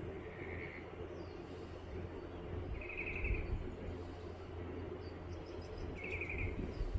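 A small bird singing a short buzzy trill three times, about three seconds apart, over a steady low rumble.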